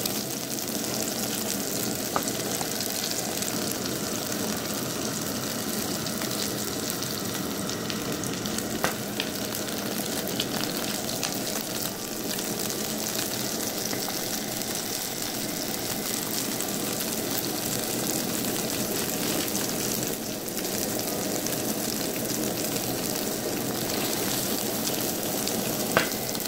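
Ground-beef burger patties sizzling steadily in hot oil in a nonstick frying pan, with a few faint clicks. Near the end a wooden spatula knocks against the pan as one patty is turned over.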